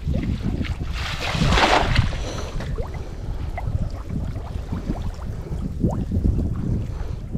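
Water splashing and sloshing close by, with a louder rushing splash lasting about a second, starting about a second in.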